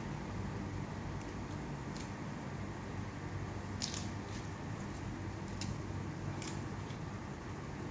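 Kitchen handling sounds while food is being prepared: scattered light clicks, several close together about four seconds in, over a steady low hum.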